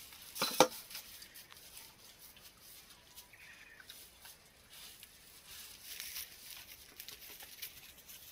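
Ewes and a lamb eating malt feed from tubs on straw: soft, scattered crunching and clicking of chewing and nosing in the feed. A single sharp knock sounds about half a second in.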